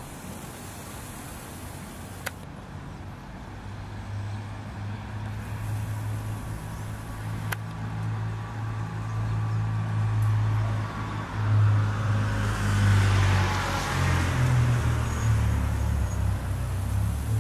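Street traffic: a low engine rumble builds from about four seconds in, and a vehicle passes, loudest a little past the middle. Two short sharp clicks are heard in the first half.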